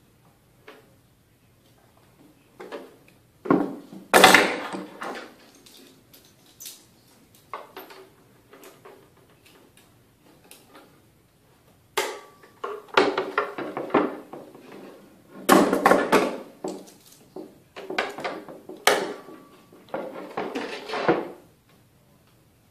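Hard plastic armor parts being handled and knocked against a wooden tabletop, with scattered knocks at first. From about twelve seconds in comes a busy run of clicking, rustling and tape being pulled off the roll and torn as a strip is taped onto the knee piece.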